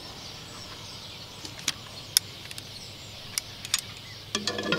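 Outdoor evening ambience: a steady faint hiss with a few scattered sharp clicks and light taps from handling cooking gear on a table.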